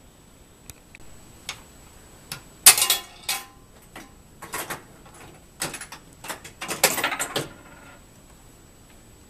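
Clicks and clattering rattles from the mechanism of a 1937 coin-operated arcade game being worked by hand: a few light clicks, then several bursts of clattering, the loudest about three seconds in.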